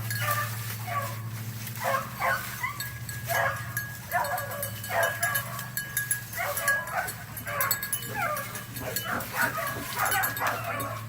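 A puppy barking and yelping in repeated bouts of short, high calls while hunting a rabbit by scent. A steady low hum runs underneath.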